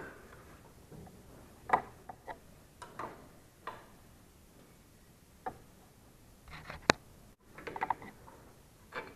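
Wrench working the nuts near the front axle of an LML Vespa NV's front hub as they are loosened: scattered light metallic clicks and ticks, with a sharper click about seven seconds in.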